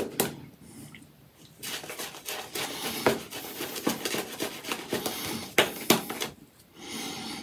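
Apshave Cashmere shaving brush swirling thick soap lather over a stubbled face: wet, crackly brushing in uneven strokes. It starts about a second and a half in, pauses briefly near the end, then resumes.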